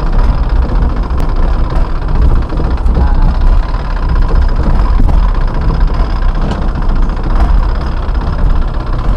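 A boat's engine running steadily and loudly, with no change in pace.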